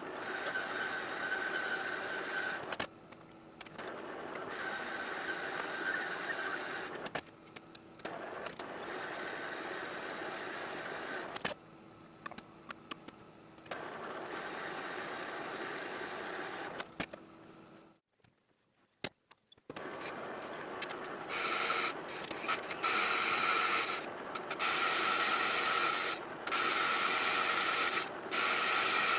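Manual metal lathe running, turning an EN8 steel part, a steady machine hum with a constant whine. It comes in stretches with sudden drops in level and a brief near-silent gap about 18 seconds in, then runs louder from about 20 seconds.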